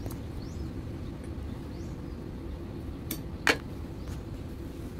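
A single sharp metallic clink about three and a half seconds in, from hand tools on the valve rocker arms during tappet clearance adjustment on an Isuzu 8PE1 engine, over a steady low background rumble.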